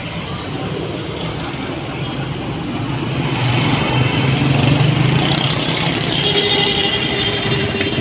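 Motorcycle engine running steadily with a low hum amid street traffic; it swells a little partway through and a higher whine joins in the second half.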